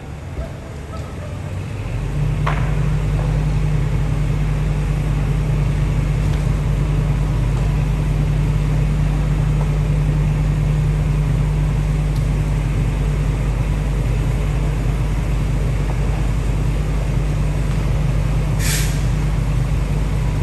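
Fire engine's engine running with a loud, steady low drone that swells up about two seconds in and then holds level, with a short hiss near the end.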